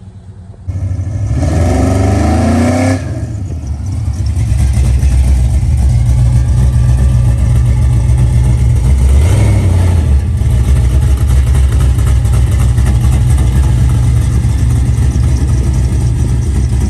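Car engine revving up, its pitch rising, about a second in, then running loud and steady with another pitch change around the middle; it starts and cuts off abruptly.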